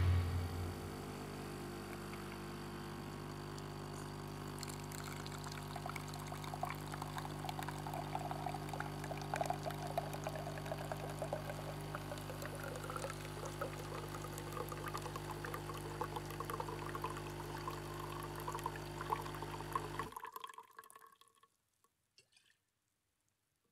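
Low steady electrical hum with a faint crackling, trickling noise over it, cutting off suddenly about twenty seconds in.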